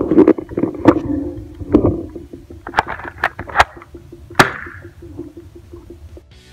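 Spring airsoft shotgun being cocked and fired, a series of about six sharp snaps over four seconds or so.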